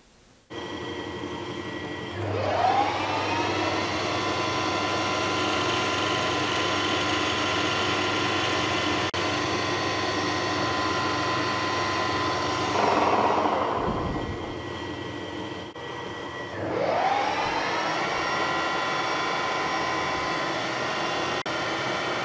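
Variable-speed metal lathe spinning up with a rising whine to about 1450 rpm and running steadily, with a whine from its drive. It slows down about halfway through, then spins up again and runs steadily.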